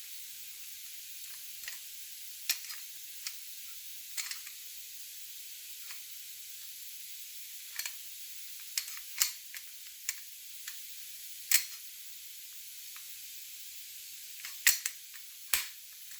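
Metal parts of a Beretta A300 Outlander semi-automatic shotgun being handled during reassembly: scattered sharp clicks and taps, a dozen or so, with the loudest about two-thirds of the way in and near the end, over a steady background hiss.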